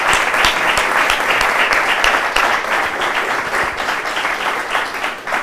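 Audience applauding: many hands clapping together in a dense patter that thins out near the end.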